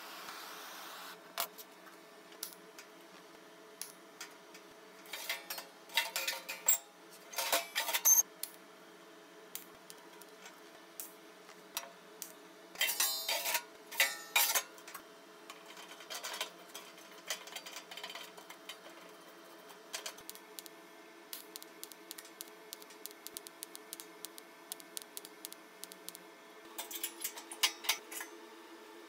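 A welding arc hissing that stops about a second in, then steel parts clinking, clanking and scraping as sheet-steel panels and a drawer are slid and fitted on a steel welding table, with a faint steady hum underneath.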